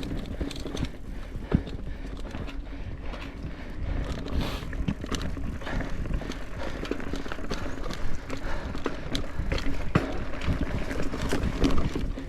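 Mountain bike riding over a rough dirt trail: tyre noise and a low rumble, with irregular knocks and rattles from the bike as it goes over bumps.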